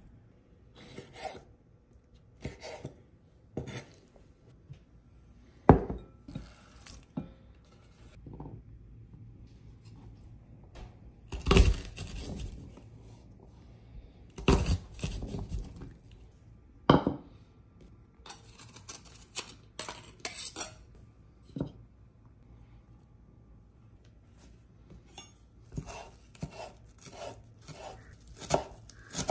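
Kitchen utensils and dishes clinking and knocking during food preparation, with a few louder knocks in the middle. Near the end comes a run of quick, even knife strokes on a cutting board.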